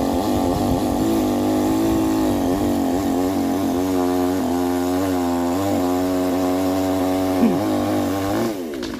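Chainsaw running at full throttle, making the back cut through the top of a spruce trunk, its pitch wavering under load. Near the end the pitch briefly jumps, then falls away as the throttle is released.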